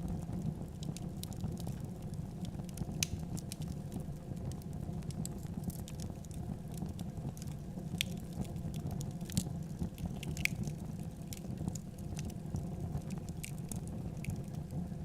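Wood fire crackling in a fireplace: irregular sharp snaps and pops over a steady low rumble of burning.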